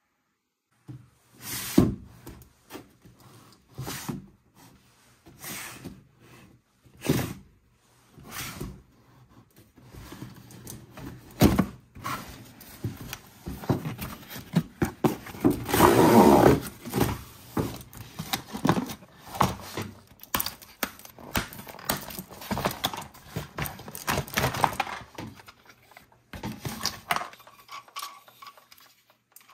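A series of handling noises: knocks, clicks and rattles of plastic toys against a tabletop, and a cardboard toy box being opened. The loudest part is a stretch of cardboard scraping and rustling about halfway through.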